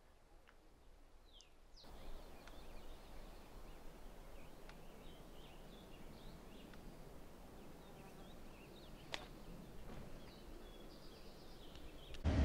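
Faint outdoor ambience of steady wind noise, which grows louder about two seconds in, with scattered short chirps of small birds and a couple of faint clicks.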